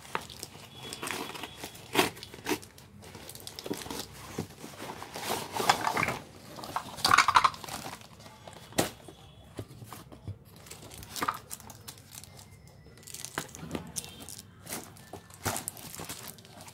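Cardboard toy box and its packaging being handled and pulled open by hand: irregular rustling, crinkling and tearing, with light clicks and knocks of small wooden toy-kitchen pieces. The loudest rustling comes in bursts about five to seven and a half seconds in.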